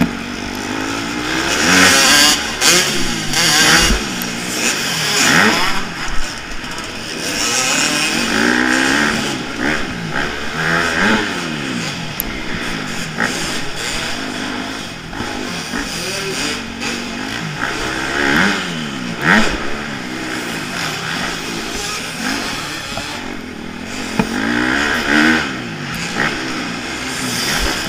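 Off-road racing engine on a dirt track, heard on board, revving up and falling away again and again as the machine accelerates out of corners and shifts or backs off, with wind and dirt noise over it.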